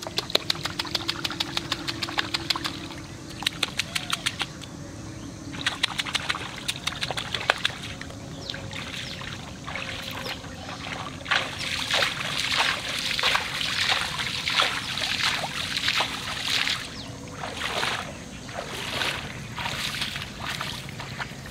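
Hands splashing in shallow muddy water in quick runs of small sharp splashes, then a person wading through the shallow water, a slosh with each step.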